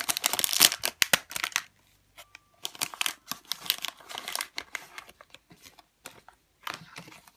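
A foil-lined plastic blind bag crinkling and tearing as it is torn open, loud and dense for the first second or so. Then come quieter, scattered crinkles and rustles as the bag is spread open and the paper leaflet is pulled out.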